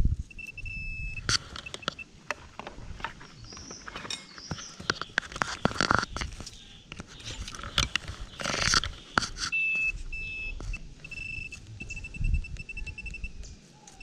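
Handheld metal-detector pinpointer giving short high beeps, briefly at first and then pulsing quickly for a few seconds in the second half as it sits over a target. Under it, soil and leaf litter scrape and crunch as the hole is dug and searched by hand, loudest a little past the middle.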